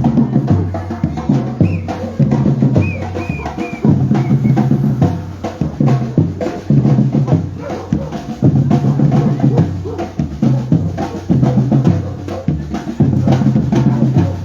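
Batucada drum ensemble playing a steady repeating rhythm: deep bass drums under snare drums and other percussion strokes.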